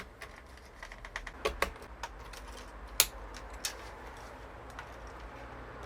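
Light, irregular clicks and taps of small parts being handled and fitted into an opened DJ controller during reassembly, with one sharper click about three seconds in.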